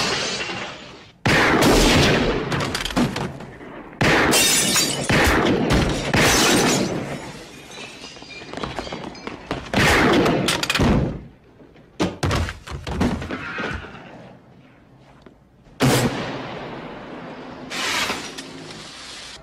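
Glass shattering and heavy crashes: a run of sudden loud hits a few seconds apart, each dying away over about a second, amid a shop window's worth of broken glass.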